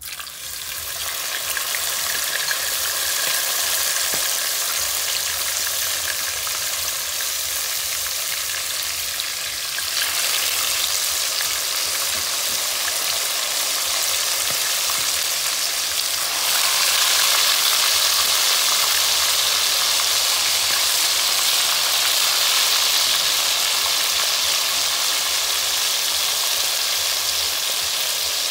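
Chicken pieces frying in hot oil in a pot: a steady sizzle that starts as the chicken goes into the oil and grows louder about sixteen seconds in.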